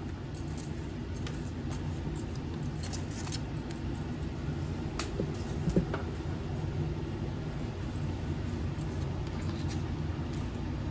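Kitchen knife shredding cabbage on a cutting board, a few faint cuts and taps over a steady low background hum.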